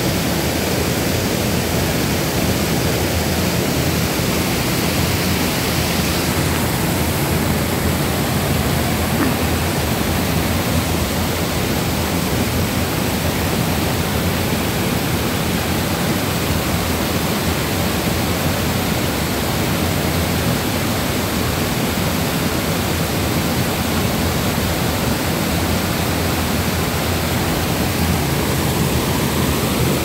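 Steady, loud rush of a waterfall and fast-flowing stream water, unchanging throughout.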